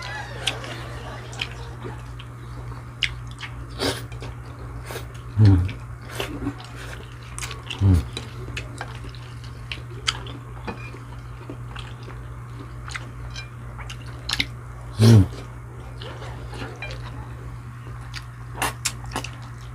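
Close-up eating sounds of fried chicken being chewed: scattered small wet smacks and clicks of the mouth. Three short, louder low sounds drop in pitch, over a steady low hum.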